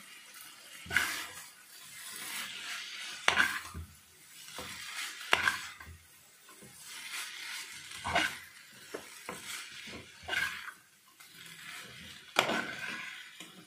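A spatula scraping and knocking against a frying pan as noodles and stir-fried vegetables are tossed and mixed, with about six louder strokes roughly two seconds apart.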